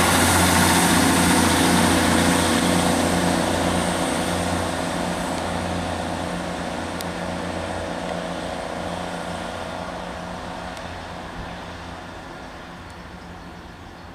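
Great Western Railway diesel passenger train pulling away, its engines giving a steady low drone with wheel and rail noise that fade gradually as it recedes.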